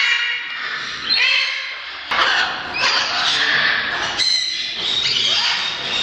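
Macaws squawking: a series of harsh, overlapping calls, one roughly every second, in a large indoor hall.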